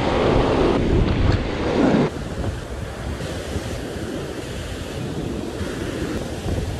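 Ocean surf breaking and washing around, with wind buffeting the microphone for about the first two seconds. The sound then drops abruptly to a quieter, steady wash of waves.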